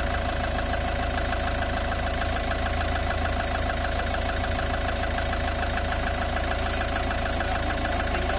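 Toyota Hiace van engine idling steadily, with a fast, even ticking over the running note.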